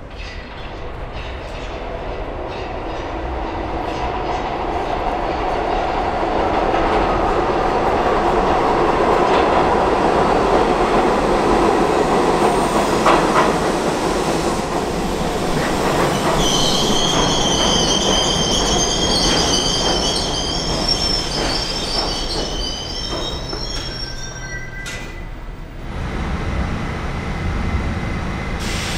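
A New York subway B train pulling into an underground station: the rumble and clatter of its wheels grow louder over the first several seconds. Past the middle, the wheels and brakes give a high, steady squeal of several tones as it slows to a stop. Near the end the sound cuts to a quieter station, with a train approaching in the distance.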